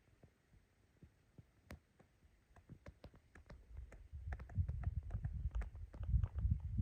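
Footsteps walking on a dirt bush track: scattered light crunches and clicks underfoot, with heavier low thuds from about four seconds in.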